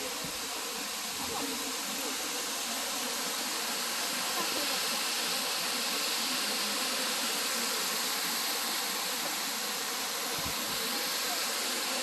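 Steady, even hiss of outdoor ambience, with faint murmuring underneath.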